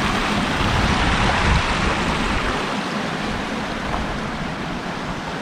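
Rushing water of a mountain creek, a steady even noise, with a low rumble underneath that thins out about halfway through.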